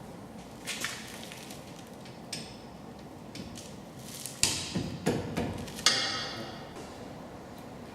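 Metal clinks and knocks of brake parts and tools being handled while the caliper and disc come off a wheel hub, with a cluster of louder ringing clanks about halfway through.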